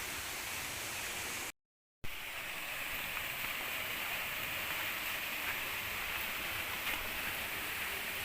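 Steady rush of flowing river water, cutting out completely for about half a second between one and a half and two seconds in.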